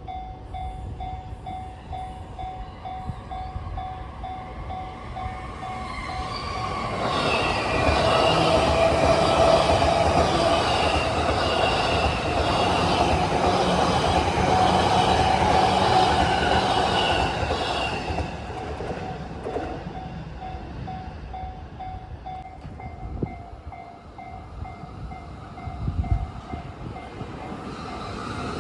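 Japanese level-crossing warning bell ringing in a steady repeating pulse while a JR E233-series electric train approaches and passes. The train is loud for about ten seconds, from around seven seconds in, and covers the bell, which rings on after the train has gone by.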